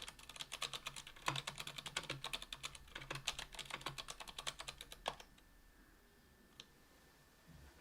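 Typing on a KBDfans Tofu 60% aluminium keyboard with stock Kailh BOX Silent Brown tactile switches and GMK keycaps: a quick run of keystrokes that stops about five seconds in, followed by one faint click.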